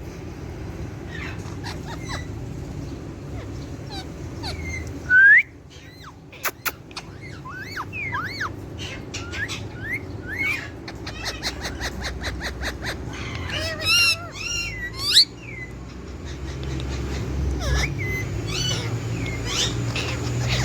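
Pet Alexandrine and ringneck parakeets chirping, whistling and squawking in short rising and falling calls, with a few loud sharp calls about five seconds in and again around fourteen to fifteen seconds.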